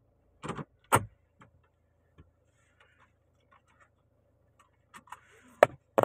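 Sharp clicks and knocks from handling things inside a car's cabin: a pair about a second in, faint scattered ticks, then two more sharp clicks near the end.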